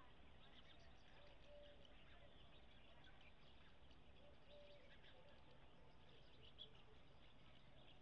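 Faint birdsong: scattered high chirps, and a soft short low note heard twice.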